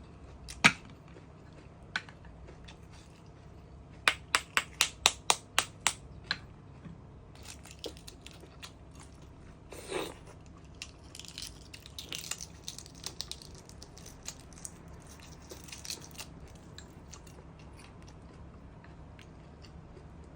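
Close-miked eating sounds: chewing and crunching of food. A quick, even run of about eight sharp clicks comes about four seconds in, followed later by several seconds of crackly crunching.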